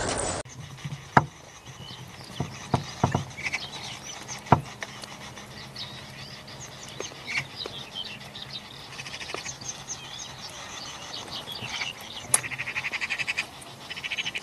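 Outdoor wild ambience with scattered short bird chirps and a few sharp clicks, then a rapid rattling call about twelve seconds in that comes again near the end.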